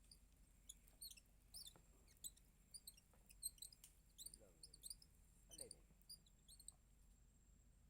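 Faint, quick high-pitched chirps from small animals, repeated many times in irregular runs. Two short low sounds that slide down in pitch fall in the middle.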